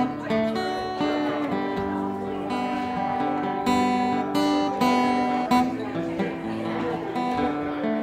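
A Guild steel-string acoustic guitar played solo, picking and strumming chords in a steady rhythm as the instrumental introduction to a folk song.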